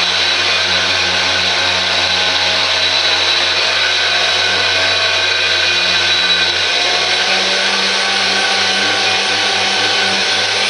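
Power tool spinning a wire brush steadily against metal brackets, scrubbing off old paint.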